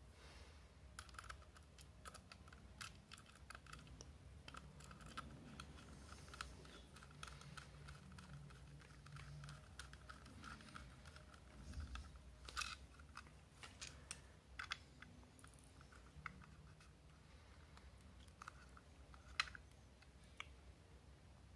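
Faint, irregular small clicks and scratches of a screwdriver turning small screws into the plastic case of a Sonoff Basic smart switch, with light handling of the plastic parts.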